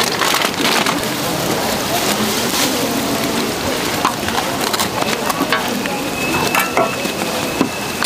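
Hotteok frying in shallow oil on a flat steel griddle, a steady sizzle, with scattered sharp clicks of metal tongs against the pan.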